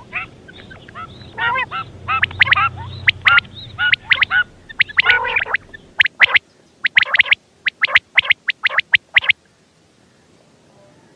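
Quail (batair) calling: a fast run of short, sharp repeated notes that stops suddenly about nine seconds in.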